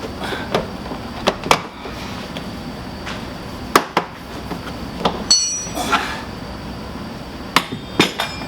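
A door trim panel is handled and pressed back into place on a Toyota Sienna's rear door, giving a series of sharp knocks and clicks, mostly in quick pairs, with a short metallic ring just after five seconds.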